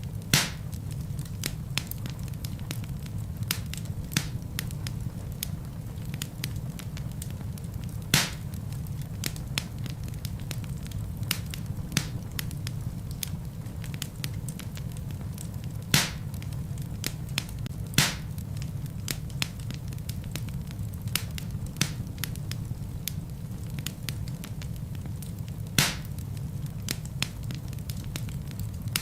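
Wood fire in a fireplace crackling steadily over a low rumble of flame, with about five sharper, louder pops from the burning logs scattered through.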